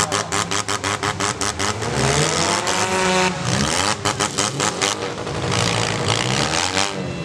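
Demolition derby cars' engines revving, their pitch rising and falling, with two runs of rapid sharp clatter of about eight to ten cracks a second, near the start and about four seconds in.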